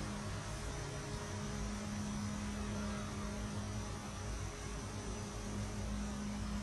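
A steady low hum holding one pitch, over a constant hiss and a low rumble.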